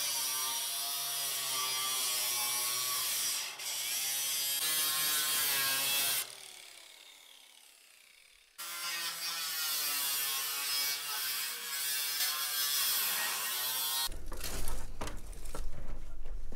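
Angle grinder cutting through a metal siding panel, a steady high whine with a hiss. About six seconds in it is switched off and winds down with falling pitch, starts again about two seconds later and cuts again, the pitch dipping briefly under load, until it stops about three seconds before the end. Then a low rumble with scattered clicks.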